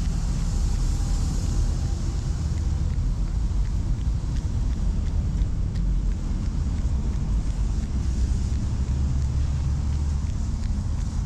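City street traffic: a steady low rumble of cars, with an even hiss of noise above it.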